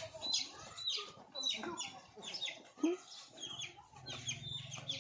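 Chickens clucking and calling, a rapid run of short high-pitched calls, two or three a second. A low steady hum comes in near the end.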